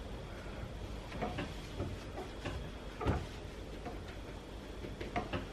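Light, irregular knocks and rustling handling noises, with a somewhat louder knock about three seconds in.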